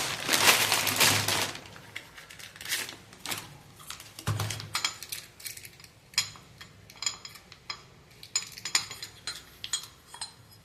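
A rustle of handling in the first second and a half, then a series of light, sharp metallic clinks and taps: small metal motorcycle engine parts and tools being picked up and set down on a workbench.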